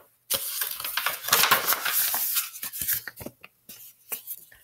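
Pages of a small paper storybook rustling and crackling as they are flipped close to the microphone: a dense rustle lasting about two and a half seconds, then a few light taps and rubs.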